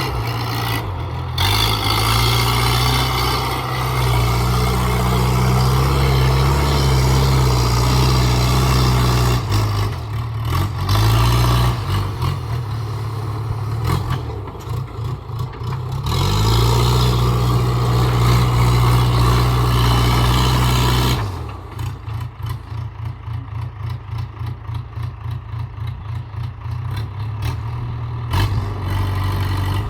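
JCB 3DX backhoe loader's diesel engine working at high revs, with the revs rising and falling. About two-thirds of the way through it drops to a steady, evenly pulsing idle.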